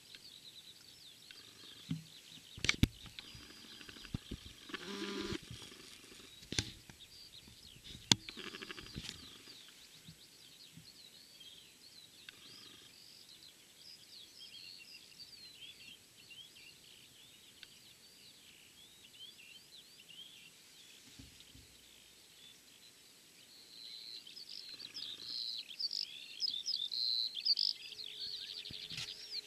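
Small birds chirping and singing outdoors, with many short high notes that grow busier and louder over the last few seconds. A few sharp clicks and knocks and a brief louder low sound come in the first ten seconds.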